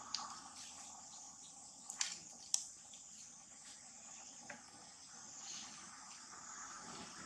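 Faint background of insects chirring steadily, with a few sharp clicks or snaps, the loudest about two and a half seconds in.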